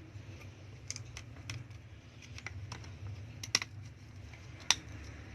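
Irregular small clicks and taps of hand tools and plastic and metal phone parts being handled at a repair bench, with two louder clicks past the middle, over a steady low hum.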